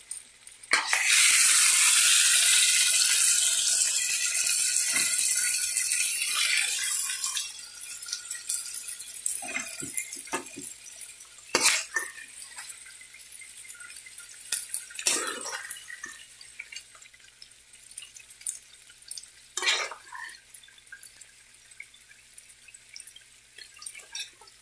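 Mutton karahi sizzling hard in a non-stick wok as the masala fries dry in oil. The sizzle starts suddenly about a second in and dies down after several seconds. After that a metal spatula scrapes and knocks now and then as it stirs the meat against the pan.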